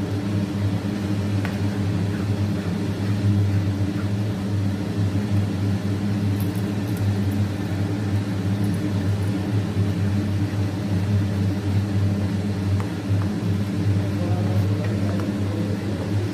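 A steady low mechanical hum, like a motor or fan, runs throughout. Faint scrapes and taps come from a spatula stirring a thick milk mixture in a nonstick pan.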